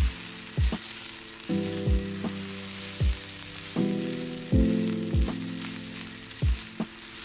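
Fried rice sizzling on a hot griddle pan while it is stirred and turned, a steady hiss throughout. Background music with chords and a kick-drum beat about once a second plays over it, the drum hits the loudest sounds.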